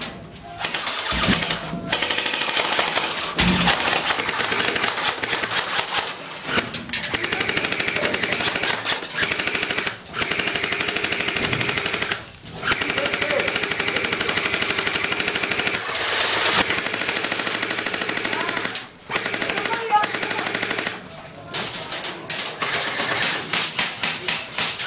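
Airsoft guns firing on full auto in long bursts, each a rapid stream of shots, with brief breaks between bursts.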